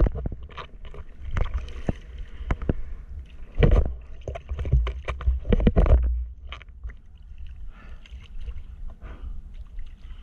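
Seawater slapping and splashing against a surfboard and a camera held just above the surface, in irregular sharp splashes over a low rumble of water and wind on the microphone; it is loudest from a little before the middle for about two seconds.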